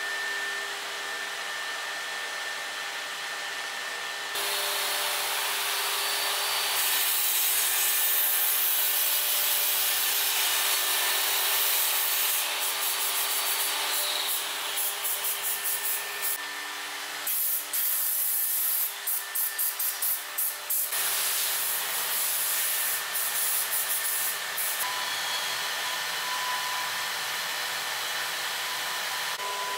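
Woodshop power tools cutting wood: a steady machine hum, then from about four seconds in the louder noise of a table saw cutting, broken into quick stop-start bursts between about eighteen and twenty-one seconds, with a steadier running tool near the end.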